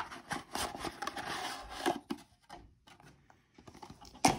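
A cardboard trading-card box and foil card packs being handled on a table: rustling and light knocks for about two seconds, then a few faint clicks and a sharp tap near the end.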